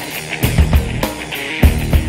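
Heavy rock music with a driving drum beat and guitar.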